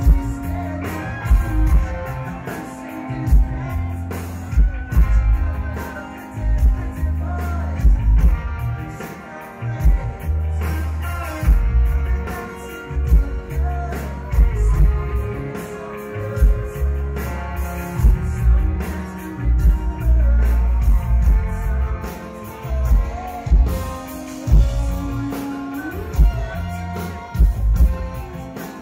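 Rock band playing a song: drum kit beating steadily under heavy bass notes and guitar, with a singing voice.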